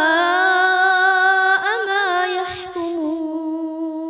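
A boy's voice in melodic Quranic recitation (tajwid), drawing out the end of a verse in long held notes. A wavering ornamented turn comes about a second and a half in, then a steady held note.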